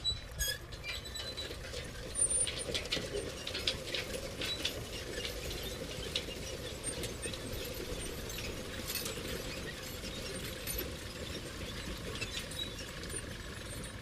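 Metal construction-site ambience: many small metallic clinks and taps, some ringing briefly, over a steady low rumble. The taps are thickest in the first half.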